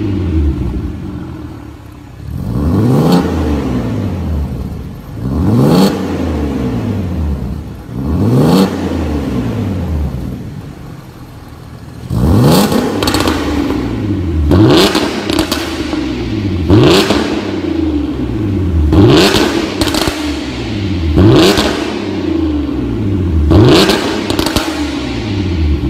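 Porsche Cayenne 958.2's 3.6-litre V6 revved through an Fi Exhaust valvetronic cat-back system with quad tips, valves open. Three spaced revs come first, then a short spell at idle, then a run of quick blips about every two seconds, each climbing and dropping back to idle.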